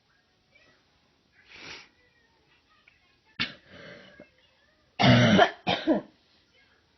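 Fake coughing. First comes a soft throaty sound, then a sharp cough about three and a half seconds in, and near the end two loud coughs in quick succession, the loudest.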